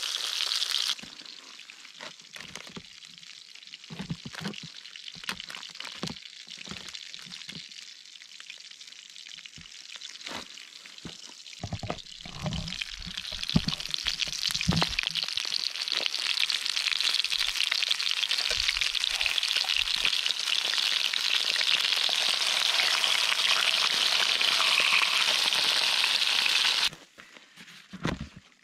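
Estuary cod fillets frying in hot oil in a pan over campfire coals, a steady high sizzle. The sizzle drops quieter about a second in, with a few scattered knocks, swells loud again midway, then cuts off suddenly near the end.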